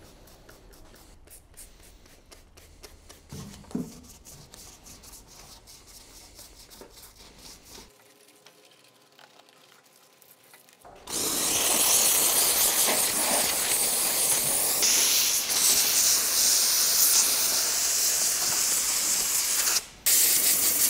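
A handheld steam cleaner blasting steam over an engine bay: a loud, steady hiss that starts about halfway through and briefly breaks off near the end. Before it come faint, quick spritzes from a trigger spray bottle pre-soaking the bay with cleaner.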